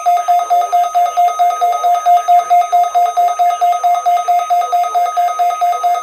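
Weather alert radios sounding their alarm together, set off by the National Weather Service's weekly-test warning tone. It is a loud, fast-pulsing electronic beep, about five or six pulses a second, over a steady higher tone.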